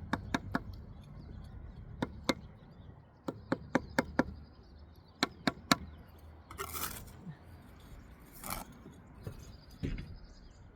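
Brick trowel tapping a freshly laid brick down into its mortar bed: sharp taps in small quick groups of two or three, with two short scraping sounds past the middle.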